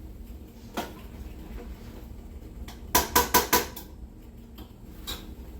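A utensil clinking and knocking against a cooking pot as BBQ sauce is stirred, with a quick run of four or five clinks about three seconds in.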